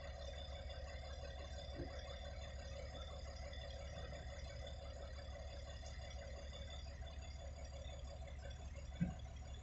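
Diesel engine of a Cat 336 hydraulic excavator running steadily as it digs and swings a bucket of rock, with an articulated dump truck standing beside it. A faint knock comes nearly two seconds in, and a louder sharp knock near the end.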